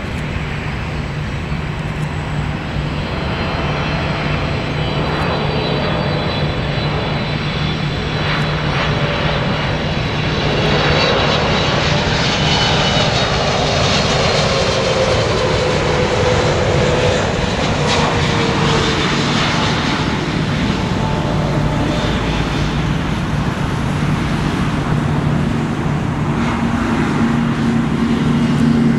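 Boeing 777-300ER's twin GE90-115B turbofan engines on landing approach: a steady low drone growing louder over the first ten seconds or so. The jet's whine falls in pitch as it passes by, and the engine noise carries on as it reaches the runway near the end.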